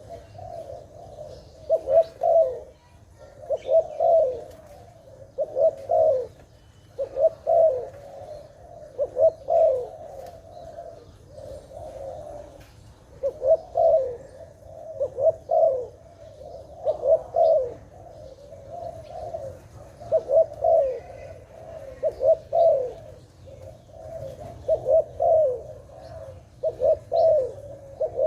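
Zebra dove (Malay dove) cooing: short rolling, warbling phrases repeated every one and a half to two seconds.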